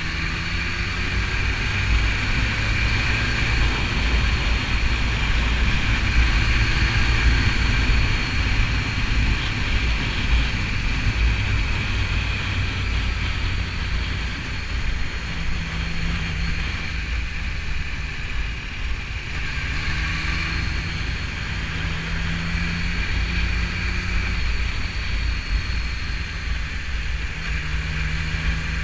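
BMW S1000RR inline-four sport motorcycle riding along, its engine running under a heavy low rush of wind on the microphone, with a steady high-pitched whine.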